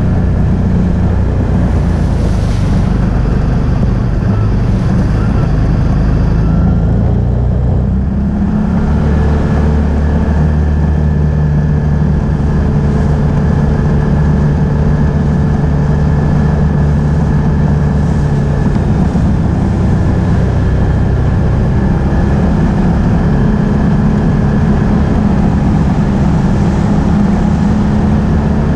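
Can-Am Outlander ATV engine running steadily while riding. About eight seconds in the sound dips briefly, then the engine settles on a new, steady note.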